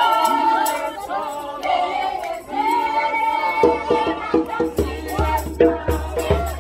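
A youth choir singing together in full voice. About three and a half seconds in, a steady beat of low thuds with short knocks joins the singing, about two to three a second.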